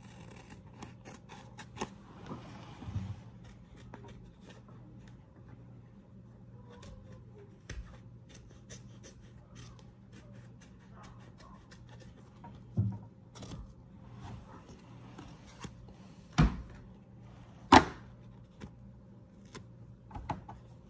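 Small scissors snipping a paper-backed vinyl sheet, which then crinkles and rustles with many small clicks as it is bent and handled. There are a few sharper knocks, the two loudest about two-thirds of the way through.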